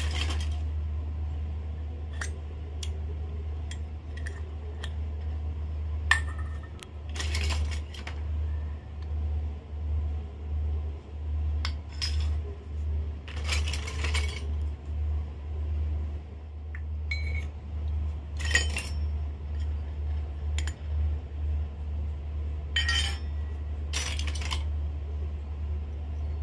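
Miniature stainless-steel toy pots, cups and lids clinking as they are set down one at a time on a concrete floor, a dozen or so scattered clinks under a steady low hum.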